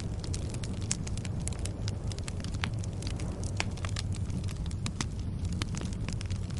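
Fire crackling: many irregular sharp pops and snaps over a steady low rumble.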